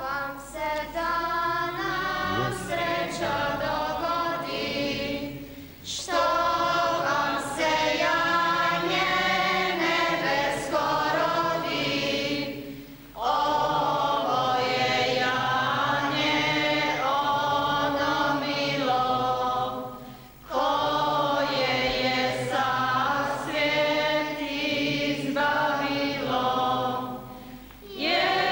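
Church congregation singing a hymn together in long phrases of about seven seconds, with short breaks for breath between them.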